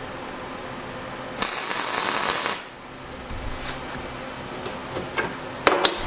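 MIG welder running a short weld on the steel jig parts, an arc about a second long starting a second and a half in; a few sharp clicks near the end.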